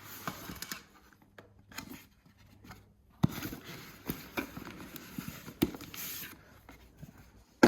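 Hands opening a cardboard product box and handling its packaging: scraping and rustling with scattered sharp taps, the loudest about three seconds in and just before the end.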